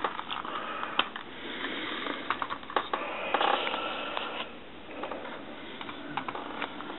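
Handling noise from a plastic radio-controlled buggy chassis held and turned by hand: scattered clicks and taps, with a denser patch of scraping and rubbing around the middle.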